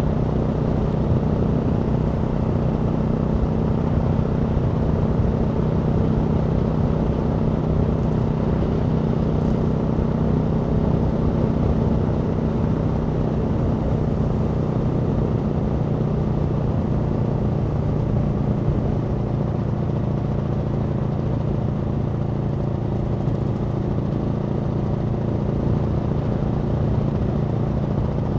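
Aprilia Tuono V4 motorcycle's V4 engine idling steadily, its pitch holding level with no revving.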